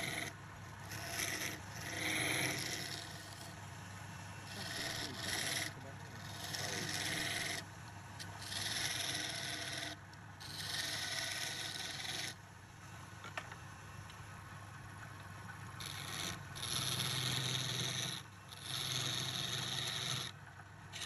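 Hand-held chisel cutting into a spinning wooden cylinder on a wood lathe: repeated scraping passes, each about two seconds long, with short breaks between them, over the steady low hum of the lathe.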